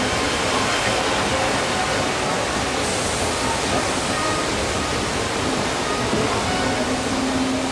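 Steady rush of a large flood of water pouring down the mock rock canyon of the Catastrophe Canyon flood effect, with faint music underneath.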